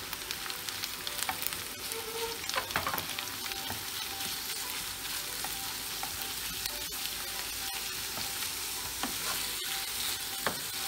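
Minced meat and diced onion sizzling in butter and oil in a non-stick frying pan, while a wooden spoon breaks up and stirs the meat with scattered light knocks and scrapes against the pan.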